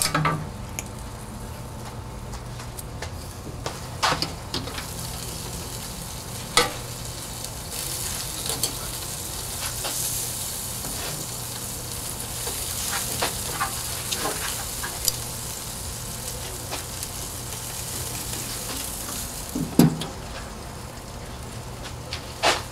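Pork ribs sizzling on a barbecue grill grate, a steady frying hiss that swells a little midway, with scattered short clicks of metal tongs and the grill lid.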